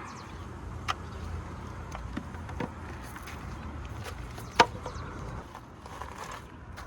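A steady low rumble of background noise with a few sharp knocks or clicks, the loudest about two-thirds of the way through.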